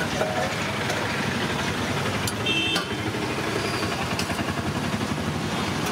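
A steady low rumbling roar, with a couple of sharp metal clinks about two and a half seconds in.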